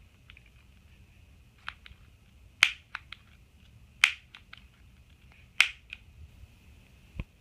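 Piezo barbecue igniter clicked three times, a sharp snap about every second and a half, with a few fainter clicks between.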